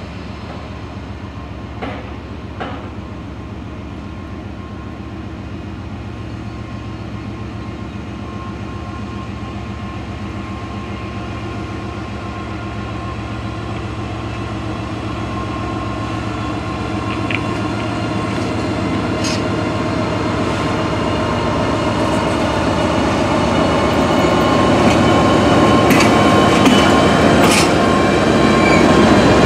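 Canadian National EMD SD75I diesel-electric locomotive running as it approaches and passes, its 16-cylinder two-stroke engine growing steadily louder. A few sharp clicks come in near the end.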